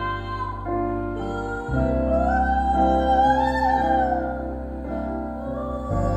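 Music: held keyboard chords over a deep bass note that shifts twice, with a high singing voice sliding and swelling over them.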